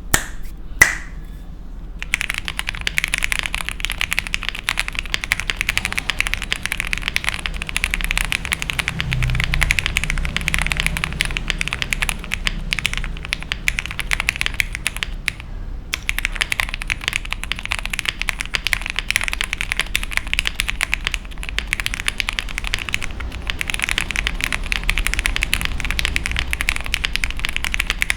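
Typing on a Rita65 gasket-mount mechanical keyboard with lubed Gateron X linear switches, a poly plate and GMK keycaps: two sharp clacks near the start, then fast, continuous keystrokes from about two seconds in, with a brief pause about halfway through.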